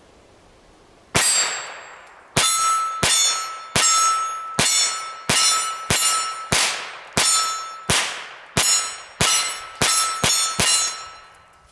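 Ruger Charger .22 LR semi-automatic pistol firing about sixteen shots, the first alone about a second in, then a steady string of roughly one and a half shots a second that quickens near the end. Each shot is followed by a ringing metallic clang, the sound of hits on a steel target.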